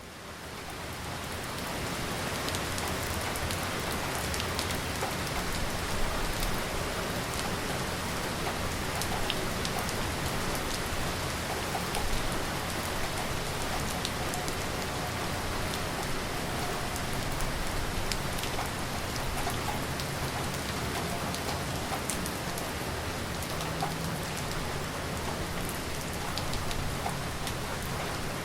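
Heavy rain falling steadily, with scattered individual drops ticking through the downpour. It fades in over the first couple of seconds.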